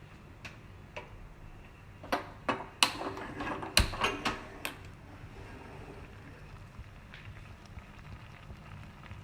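A cooking utensil knocking and clinking against a pan of simmering tomato gravy, about eight sharp strokes in the first five seconds, the heaviest near the four-second mark. After that a steady low hiss from the gas burner turned up to high flame.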